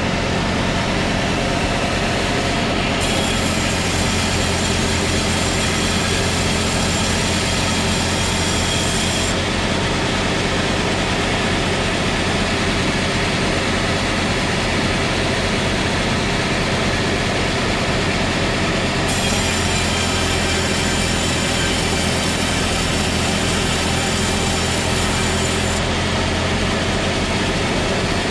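Sawmill saw cutting a trembesi (rain tree) log over the steady drone of its driving engine. The blade bites into the wood twice: about three seconds in for roughly six seconds, and again about nineteen seconds in for roughly seven seconds, each cut adding a bright, high-pitched rasp that starts and stops abruptly.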